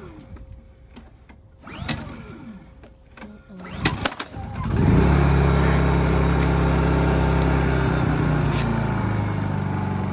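Small Honda inverter generator, fed from a household natural-gas hose, pull-started: a couple of pulls of the recoil starter rope, then the engine catches about five seconds in and runs steadily, easing slightly lower near the end.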